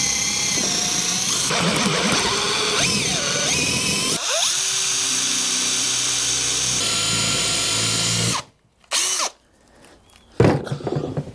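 Cordless drill boring into a timber block, running for about eight seconds, its note shifting about halfway through, then stopping; a couple of knocks follow.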